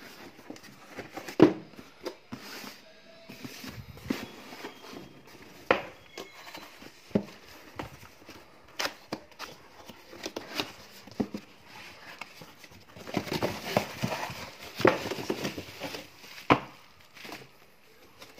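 Cardboard box being opened by hand: scattered knocks and scrapes of the flaps and box walls, then a denser stretch of crinkling as the bubble-wrapped contents are handled, about three-quarters of the way through.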